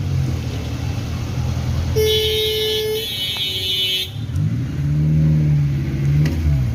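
Road traffic with vehicle engines running and revving up and down. A horn sounds for about two seconds in the middle.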